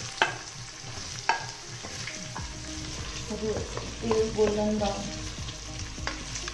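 Sliced red onions sizzling as they fry in hot oil in the stainless steel inner pot of a Greek Robocook multicooker, stirred with a wooden spatula. Two sharp knocks in the first second and a half, and a louder stretch of spatula scraping the pot about four seconds in.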